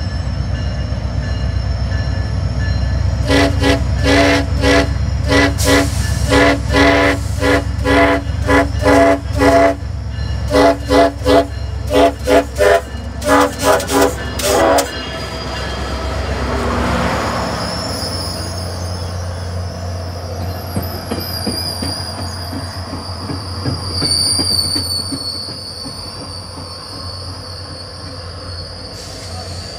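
A SunRail diesel passenger locomotive sounds its horn in a long string of short blasts, two or three a second, for about twelve seconds over the steady rumble of its engine. Afterwards a high-pitched squeal from the train's wheels takes over as it rolls through the station.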